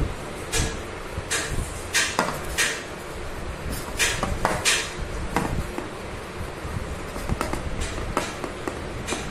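A cloth rubbing briskly over a plastic motorcycle headlight lens in short swishing strokes, roughly every two-thirds of a second and loudest in the first five seconds. The lens is being hand-polished with polishing cream.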